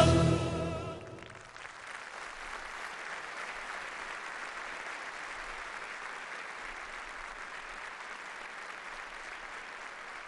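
A female opera singer's final held note with vibrato over the orchestra, fading out about a second in, then a large audience applauding steadily.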